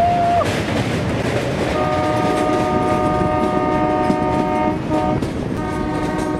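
Metre-gauge passenger train running, heard from an open coach doorway with wind rush and wheel noise on the track. About two seconds in the locomotive horn sounds a long steady blast, and near the end a second blast on a different pitch.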